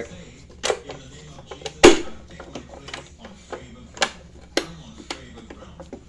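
Clicks and knocks of the bottom cover being hooked on and pressed into place on the base of a Sanitaire Tradition commercial upright vacuum: one sharp knock a little under two seconds in is the loudest, with lighter clicks scattered before and after it.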